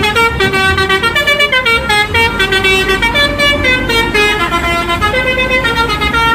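Multi-tone telolet bus horn playing a quick tune, several horn notes sounding together and stepping from note to note.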